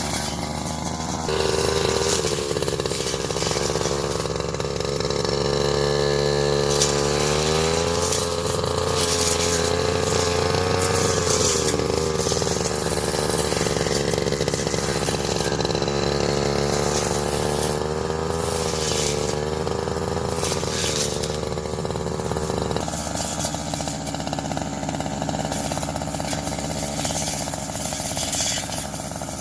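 Petrol grass cutter's small engine running. It speeds up about a second and a half in, wavers and climbs a few seconds later as the cutting load changes, holds at high speed, then drops back to a lower speed about three-quarters of the way through.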